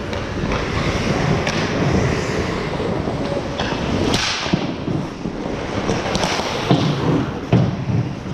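Ice hockey play on the rink: skates scraping the ice under a steady rink noise, with a louder scraping rush about four seconds in and several sharp knocks of sticks, puck or boards.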